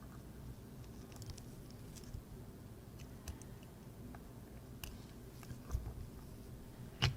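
Faint, scattered clicks and light taps of small metal watchmaker's tools on the parts of a pocket watch movement being dismantled, with a sharper click near the end.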